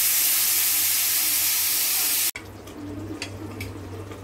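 Pressure cooker whistle letting off a loud, steady hiss of steam for about two seconds, which cuts off suddenly: the cooker is at full pressure while cooking mutton. After that come faint clicks.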